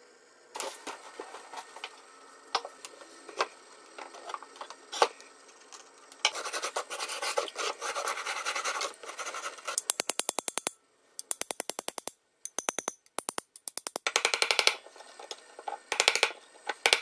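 A hand brush scrubbing loosened rust off an old iron horseshoe after electrolysis: scratchy rubbing with sharp clicks, then from about ten seconds in, runs of fast back-and-forth strokes.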